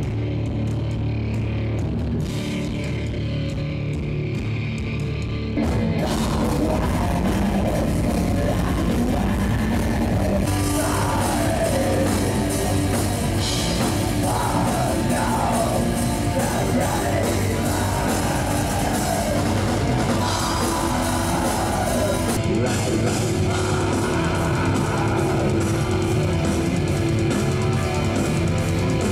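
Heavy metal music with guitars and drums; the full band comes in louder about six seconds in, with a wavering melodic line through the middle.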